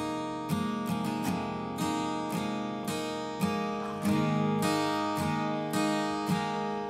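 Background music: acoustic guitar plucked and strummed in a steady, gentle rhythm, a new note or chord about every half second.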